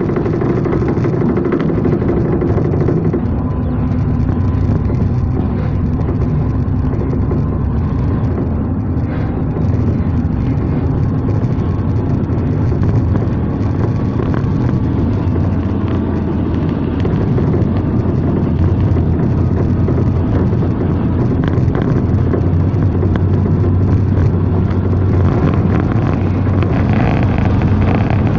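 Diesel-electric multiple unit (DEMU) passenger train running at speed, heard from inside the coach: a steady, loud rumble of wheels on rail with a low engine drone and rushing air.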